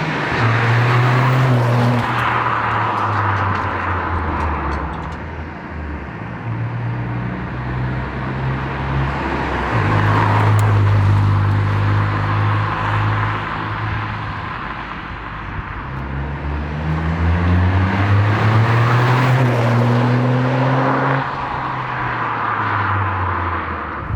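Toyota GR Yaris's turbocharged 1.6-litre three-cylinder engine running through a Scorpion resonated GPF-back exhaust while driving. The engine note holds steady for stretches, then climbs under acceleration and drops at a gear change near the end.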